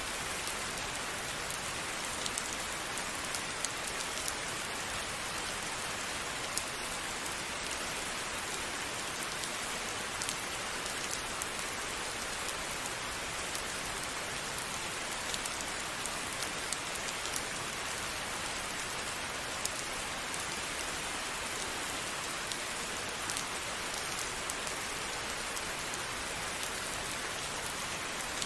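Steady rain falling, with many fine drop ticks over an even hiss.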